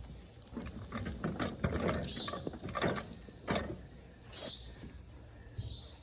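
Ratchet strap being cranked tight around a tire: a run of ratchet clicks for about three seconds, then it goes quieter. The strap is compressing the tread so the tire's bead seats on the rim.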